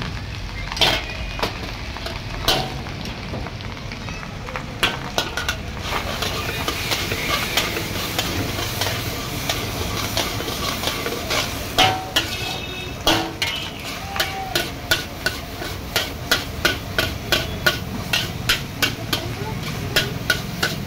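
Metal spatula scraping and striking a large metal wok as masala rice is stirred and tossed, over a steady sizzle of frying. The strikes are scattered at first, then turn into a fast regular run of sharp clanks, about two a second, in the second half.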